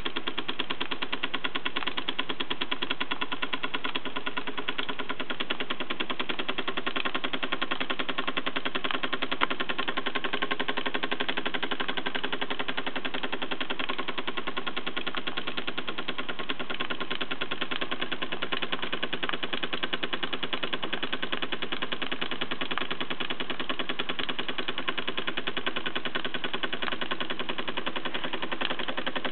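1940s Burnac Vulcan toy steam engine running steadily at speed, a rapid, even clatter of exhaust beats and moving parts.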